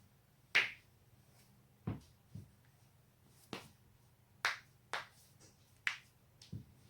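Human spinal joints cracking, neck or back: a run of about seven sharp, separate pops at uneven spacing, the loudest about half a second in.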